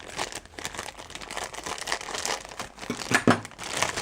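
Plastic packaging being handled, crinkling and rustling in irregular crackles.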